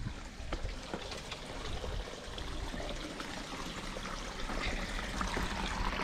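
Stream water flowing and trickling in a steady rush, getting a little louder toward the end.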